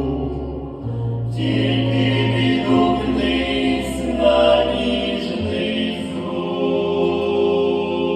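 A vocal group singing a sustained, choir-like chord over a held instrumental accompaniment, closing a Christian song.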